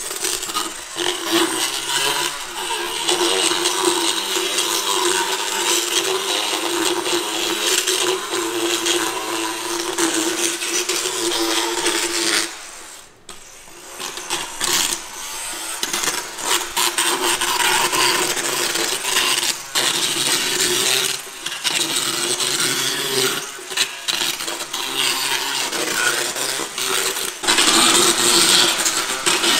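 Motorised equine dental float with a fine diamond head running against a pony's teeth, rasping down overgrowths and sharp points. It runs steadily, stops for about a second and a half near the middle, then starts again.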